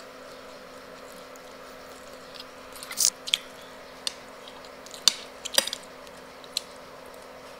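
Close-up eating sounds: a metal spoon clicking and scraping on a ceramic plate while scooping mashed potato, with chewing. A handful of sharp clicks come between about three and seven seconds in, over a steady hum.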